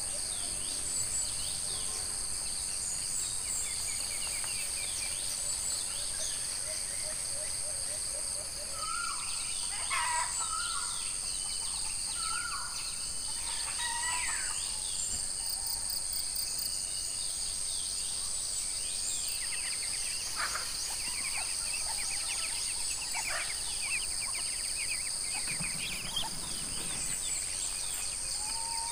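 Rural tropical outdoor ambience: a steady, high-pitched drone of insects, with birds calling over it, the calls busiest about ten to fifteen seconds in.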